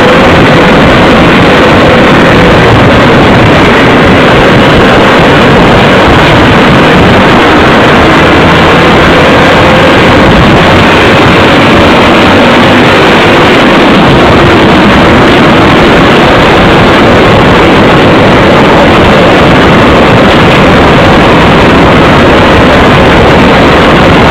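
Motorcycle engine running while riding, heard through a loud, steady rush of wind over the onboard microphone; a faint engine note drifts slowly up and down in pitch.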